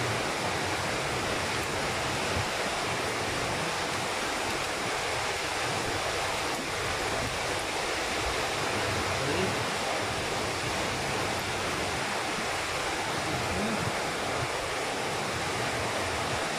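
A steady, even rushing hiss with no distinct knocks or clicks.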